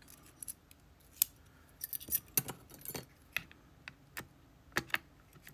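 Irregular light metallic clicks and taps, about a dozen, from small parts of a gutted Dorma Kaba GeGe pExtra+ lock cylinder being handled and checked with tools.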